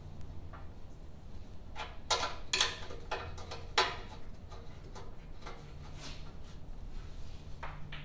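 Sheet-metal engine shroud on a garden tractor being handled: a few short scrapes and knocks of metal, the loudest clustered between about two and four seconds in, over a steady low hum.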